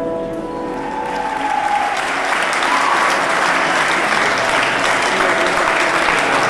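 A hall audience applauding: clapping swells in over the first two seconds as the last notes of music fade out, then holds as a steady, loud round of applause.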